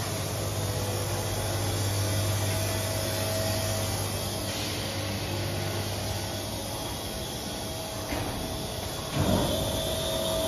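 PUR glue rolling production line running: a steady machine hum with a low drone and a steady mid-pitched tone. A brief louder thump about nine seconds in.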